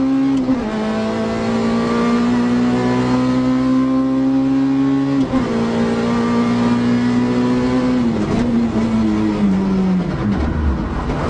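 Rally car engine heard from inside the cockpit, running hard at high revs under acceleration, its note dropping abruptly about half a second in and again around five seconds in as it shifts up a gear. In the last few seconds the note falls away as the car slows.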